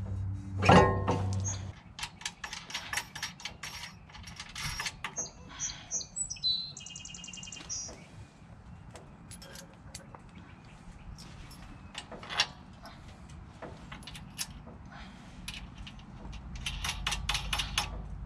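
Metal clinks and knocks of heavy-truck brake parts being handled as a greased S-cam is worked into place, with a louder knock near the start. A bird chirps briefly around the middle.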